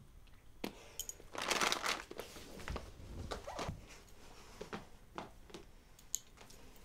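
Clothing rustling as a person moves and adjusts her cardigan, loudest about a second and a half in, with a scatter of light clicks and soft knocks.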